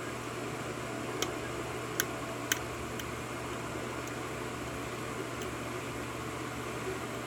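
A handful of small, sharp clicks from a lock pick working the pins of a six-pin Wilka cylinder lock during single-pin picking, over a steady fan-like hum.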